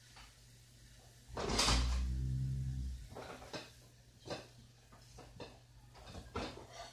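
A low dragging scrape about a second and a half in, then several separate sharp knocks and clatters, like household objects being moved and set down.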